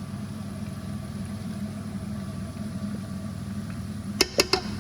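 A steady low motor hum, with three quick clinks near the end.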